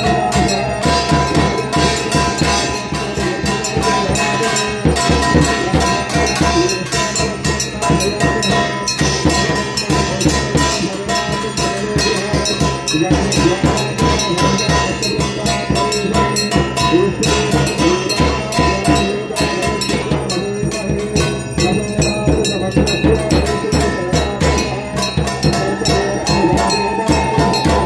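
Aarti music: bells ringing continuously over fast, steady drumming and percussion, with a sustained held tone near the start and again near the end.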